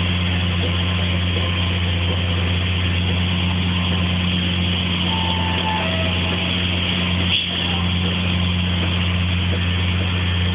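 Heavy diesel farm machinery, tractor and forage harvester, running with a steady, unchanging engine drone. There is a single brief knock about seven seconds in.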